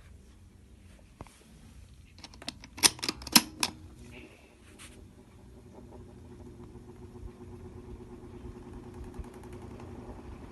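A handful of sharp clicks, then an Osaka electric fan's motor starting up and running with a low steady hum that slowly grows louder.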